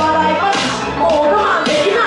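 A woman singing into a microphone over a loud amplified backing track with a steady bass line and beat.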